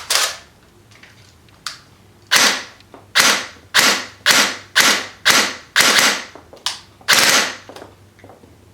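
G&G GR15 Raider AEG airsoft rifle firing single shots with a bare muzzle, no amplifier fitted: about ten sharp shots, mostly at roughly two a second, each with the brief whir-and-snap of the electric gearbox cycling the piston.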